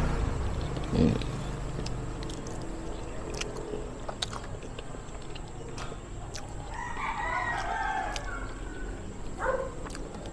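A rooster crowing once, a call of about two seconds past the middle, over scattered small clicks and taps from eating at the table.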